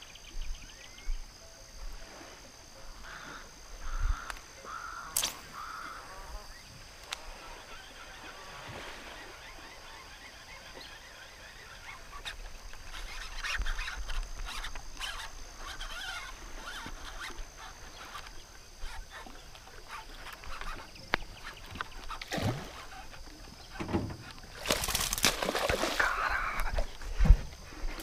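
Birds calling over a river, with scattered chirps throughout. Near the end, a hooked fish splashes and thrashes loudly at the water's surface.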